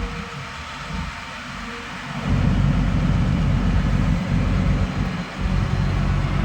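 Hyundai 215 excavator's diesel engine running, low-pitched and getting louder about two seconds in as it is worked harder.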